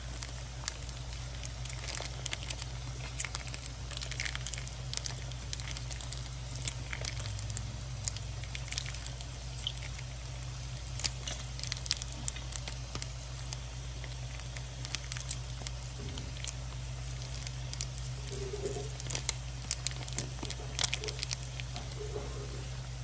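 Light crackling and sizzling from hot cookware over a steady low hum, with soft wet squishes as thick cheese sauce is poured onto cooked shell pasta in the pot.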